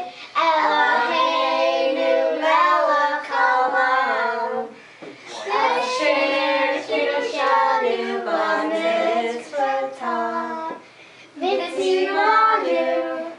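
A child singing a song in held phrases, with short pauses between them.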